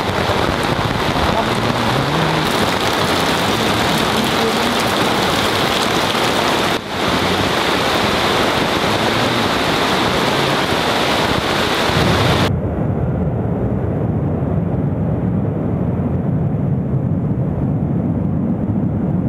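Heavy rain falling, a dense steady hiss. About twelve seconds in it changes abruptly to a deeper, muffled steady rumble.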